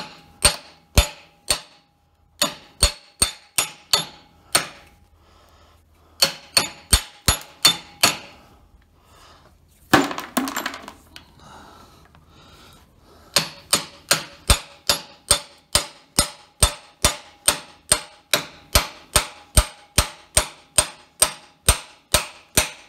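Ball-peen hammer striking the steel yoke of a Jeep driveshaft clamped in a vise, knocking out the bearing caps of a worn U-joint: sharp, ringing metal blows. They come in short runs at first, then in a steady run of about two and a half blows a second over the last nine seconds, with one louder, rattling knock about ten seconds in.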